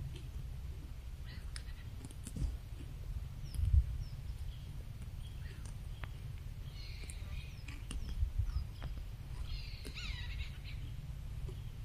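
Outdoor natural ambience: a steady low rumble with scattered clicks, and bird chirps in two short flurries, about seven and ten seconds in.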